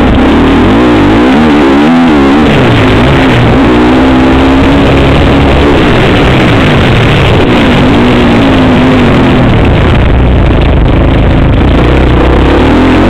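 Motocross bike engine heard from on board, loud, its pitch climbing and dropping repeatedly as the rider works the throttle through the gears.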